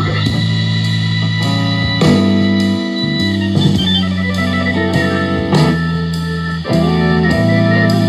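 Bose Home Speaker 300 playing a guitar-led music demo track at a loud, even level, with held chords changing every second or two and a few strong beats.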